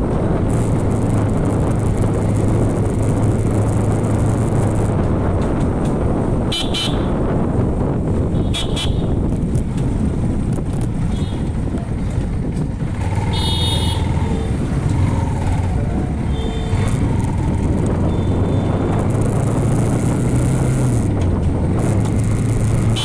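Wind rushing hard on the microphone while riding a Bajaj Pulsar NS160 motorcycle, its engine droning steadily underneath. Short horn toots sound several times, one longer blast a little past midway.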